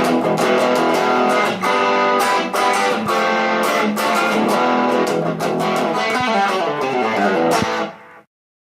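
Electric guitar, a Stratocaster through a Vox AC4 amp, playing a rock riff of picked chords; it stops about eight seconds in and the sound dies away quickly to silence.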